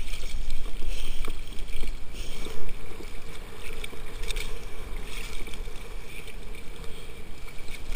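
Choppy sea water sloshing and lapping around a swimmer at the surface, heard close up at the waterline as a steady wash, with a few small splashes, the loudest about two and a half seconds in.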